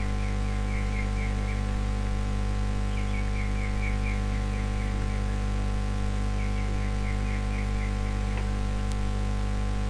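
Steady electrical mains hum picked up by a recording microphone. Over it come faint runs of short, high chirps, each run lasting about a second and a half and recurring every three to four seconds.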